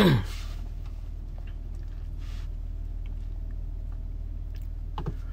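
Steady low hum inside a car cabin, with a few faint clicks and one sharper click about five seconds in.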